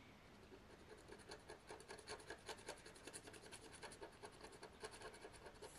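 Faint scratching of a pen-like scratch-off tool rubbing the coating off a paper scratch card, in quick repeated strokes.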